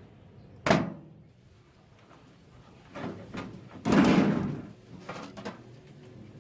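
A sharp knock, then a longer, louder rattling clatter from about three seconds in, and a few light clicks near the end: parts of a microwave oven being handled as it is stripped for scrap.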